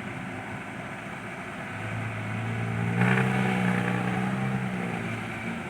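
Heavy diesel engine of a digging and hauling machine running, getting louder from about two seconds in and working harder through the middle before easing off near the end.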